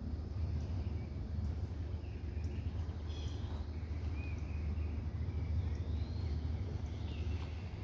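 Outdoor ambience: a steady low rumble with a few faint bird chirps about two to four seconds in.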